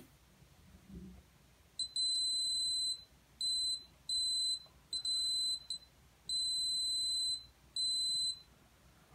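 Buzzer of a homemade two-transistor continuity tester sounding a steady high-pitched beep, switching on and off about seven times in beeps of differing length from about two seconds in. Each beep signals continuity as the probes bridge connected copper traces on a circuit board.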